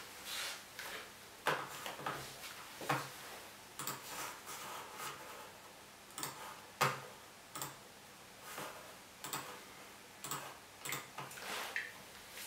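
Keys of a keyboard controller clacking as they are played, with no instrument sound: irregular plastic taps and knocks, a few to a couple each second, some louder than others.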